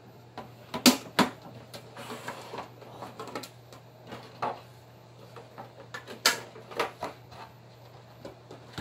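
Handling of trading-card packaging: a metal collector's tin being unlatched and its lid opened, with scattered sharp clicks and clanks. The loudest clicks come about a second in and again around six seconds in.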